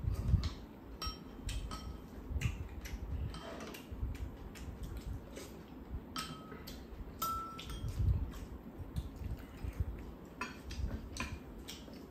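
Spoons and chopsticks clinking and scraping against ceramic bowls during a meal: irregular light clicks, some ringing briefly, with soft low thumps at the table.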